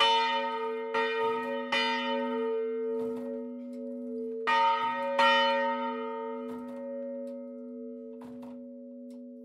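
Swinging church bells ringing down. Clapper strokes come three times in the first two seconds and twice more around halfway, then grow fainter and further apart as the swing dies away. The bells' long humming tones ring on beneath.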